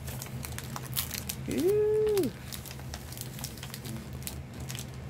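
Crinkling and crackling of a small plastic toy wrapper handled in the fingers as a Shopkins mini pack is unwrapped. About a second and a half in, a short pitched vocal note rises, holds for under a second and falls, louder than the crinkling.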